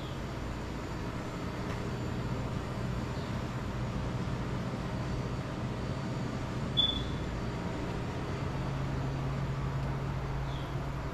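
Steady low hum over a background hiss, with one short high chirp about seven seconds in.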